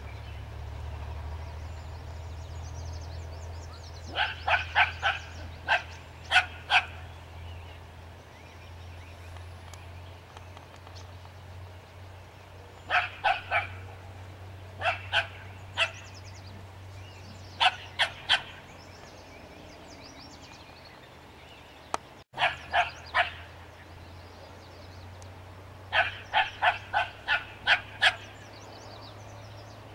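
A small fluffy dog barking at a skunk in quick volleys of short, high barks, five bursts of two to six barks with pauses between. A steady low hum runs underneath.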